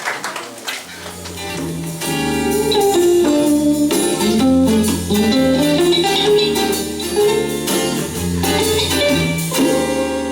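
Live band playing the instrumental intro to a song, with guitar over a bass line. The bass comes in about a second in and the full band about two seconds in, as applause dies away.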